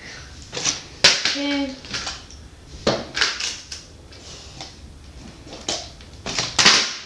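Part-filled plastic water bottles flipped and landing with sharp knocks on a plastic toy backboard and wooden floor. The loudest knocks come about a second in and near the end, with smaller taps between.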